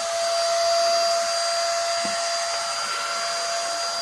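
Midea MT 21 NRE vacuum cleaner running steadily: a constant high motor whine over the rush of air.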